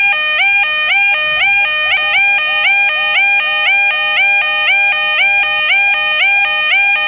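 Electronic level crossing alarm sounding continuously: a two-tone pattern that slides up from a lower tone to a higher one and repeats about twice a second.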